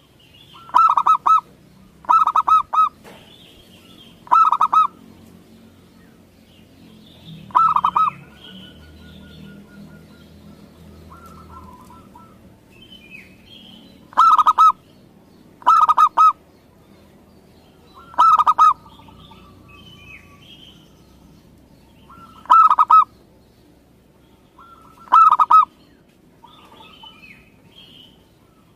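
Local zebra dove (perkutut) cooing: nine short, loud bursts of rapid staccato coos, each well under a second, coming every few seconds at an uneven pace.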